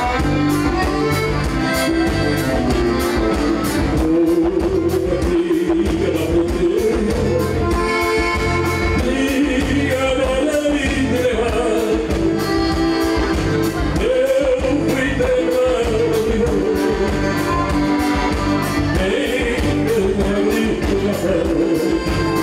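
A man singing a southern Brazilian gaúcho song to his own button accordion, with a steady bass beat underneath.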